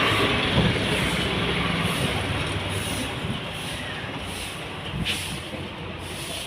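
Street traffic noise: a passing vehicle's rush of sound slowly fading away, with a single sharp knock about five seconds in.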